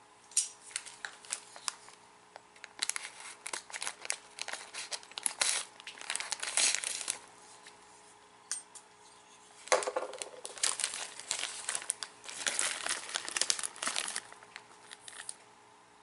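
Clear plastic snack bag crinkling and rustling as it is opened and a small cake is taken out, in two bouts with a pause of about two seconds in the middle.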